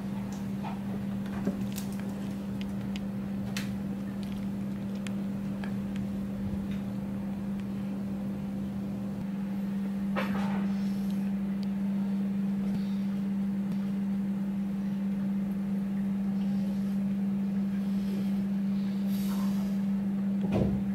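A steady low machine hum at one even pitch, with a few faint clicks and taps over it and a short rustle about halfway through.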